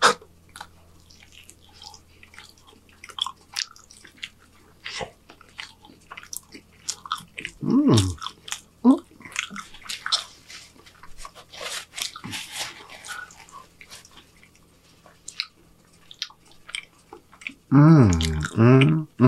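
Close-miked chewing of a mouthful of burrito: wet smacking and many small mouth clicks. A few short sounds of the eater's voice come about eight seconds in, and a louder one near the end.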